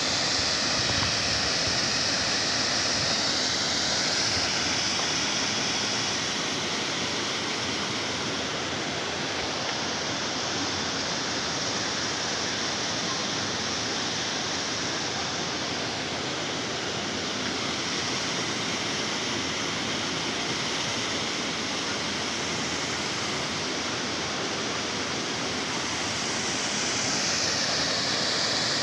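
Water spilling over a canal lock gate into the lock below, a steady rush. It eases a little for most of the stretch and grows louder again near the end.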